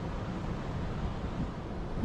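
River water flowing: a steady, unbroken rushing noise, heaviest in the low range.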